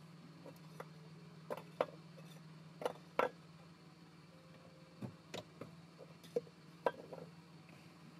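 Scattered light knocks and clacks of hard objects being handled, about eight in all, over a steady low hum.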